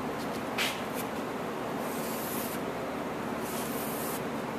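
Pencil scratching along the edge of a propeller pattern as it is traced onto a wooden blank: a short stroke, then two longer strokes of about a second each.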